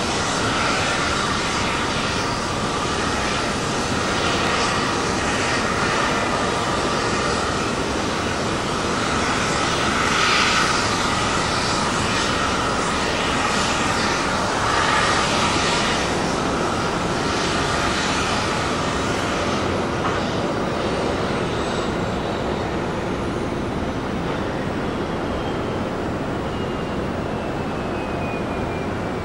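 Boeing 737-900ER's CFM56-7B turbofan engines running at taxi power: a steady jet rush with a whine in it. In the second half a thin high whine slowly falls in pitch.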